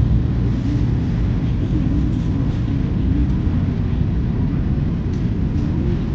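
Wind buffeting the microphone: a steady, uneven low rumble that covers most of the sound.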